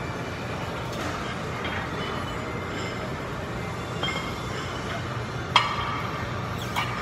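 Steady low hum of a large gym, broken about five and a half seconds in by a sharp metallic clank that rings briefly, with a lighter clink near the end, typical of steel weight plates or bars knocking together.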